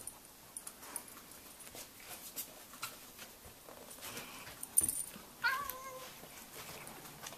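A domestic cat gives one short cry a little over five seconds in, amid scattered soft scuffling and light knocks as the cat and a Bouvier des Flandres play-wrestle.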